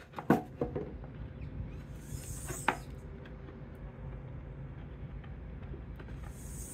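Hand work on pine beehive box boards: a few light wooden knocks just after the start and another about two and a half seconds in, with two brief soft scrapes, as wood glue is worked into the finger joints. A steady low rumble runs underneath.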